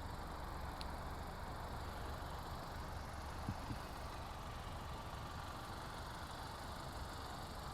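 Car engine idling steadily, a low hum, with two faint knocks about three and a half seconds in.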